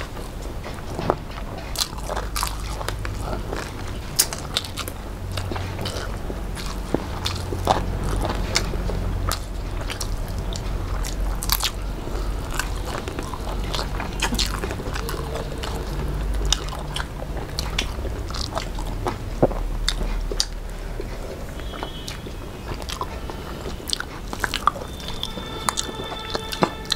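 Two people eating rice and fried fish with their hands, close-miked: chewing with many sharp, irregular mouth clicks.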